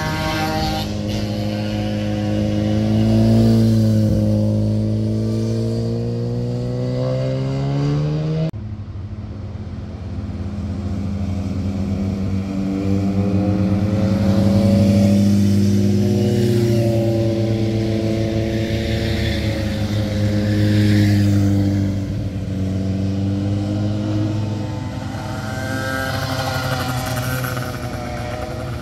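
Sport motorcycle engines ridden through hairpin bends, the engine pitch rising and falling as the riders roll off into the turn and accelerate out. The sound switches abruptly about eight seconds in to another passing bike.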